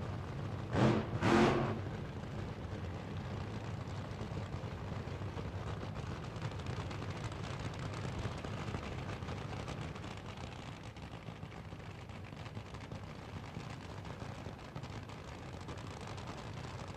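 Sports car engine idling with a steady low rumble. Two short, loud bursts come about a second in.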